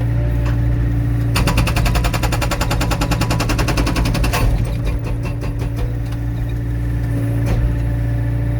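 Excavator-mounted hydraulic breaker hammering a log, a fast even rattle of blows for about three seconds starting a second in, then a few slower separate strikes, over the excavator's steady diesel engine hum.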